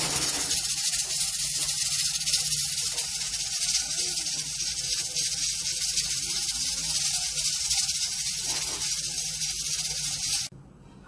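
Loud, steady, high-pitched cooking hiss that starts suddenly and cuts off abruptly about ten and a half seconds in.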